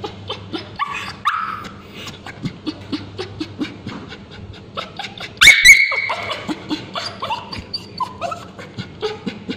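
Male Bichon Frise crying out in distress as ointment is put on its scabies-sore tail. A short whine comes about a second in, then one loud, piercing high yelp a little past halfway, with softer whimpers after it.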